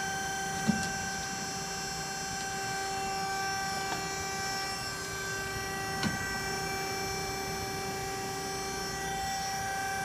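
Scotchman hydraulic ironworker's electric motor and hydraulic pump idling with a steady whining hum. Two short knocks, just under a second in and near six seconds, as the steel flat bar is handled on the steel shear table.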